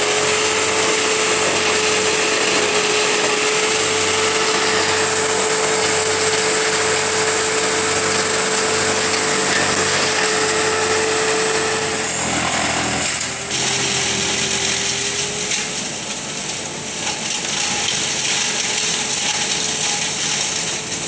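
Vermeer wood chipper running at full speed while willow branches are fed in and shredded, a loud steady mechanical din with a constant high whine. About twelve seconds in the whine breaks off and the sound turns rougher and a little quieter.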